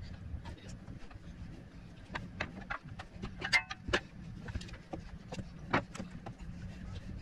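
Irregular light clicks and knocks of hands and a thin prying tool working a drive belt onto the pulley of a Predator 459cc engine, over a steady low hum.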